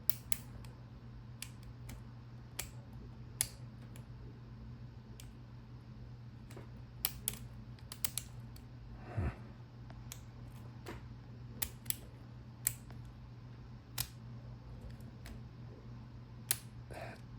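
Irregular sharp clicks from the number wheels of a Master Lock wheel combination lock being turned a detent at a time while the shackle is held under tension, feeling for the binding wheel to decode the combination. A steady low hum runs underneath.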